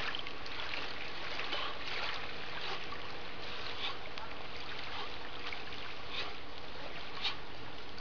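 Small lake waves lapping steadily at a pebbly shore, an even wash of water noise with faint little splashes.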